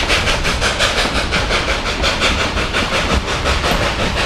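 Narrow-gauge steam train running, heard from an open car at the rear: a rapid, even beat, about six a second, over a steady rumble.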